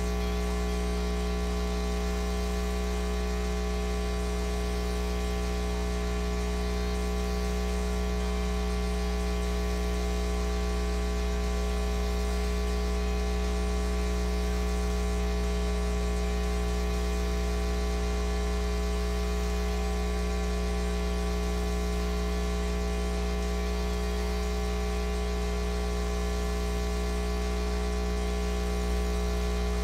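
Steady electrical mains hum and buzz, a stack of fixed tones with hiss over it, at an even level with no speech heard.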